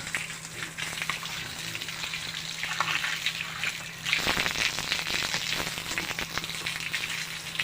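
Water from a hose spattering onto pigs and the concrete floor of their pen, a steady hiss that gets louder about four seconds in.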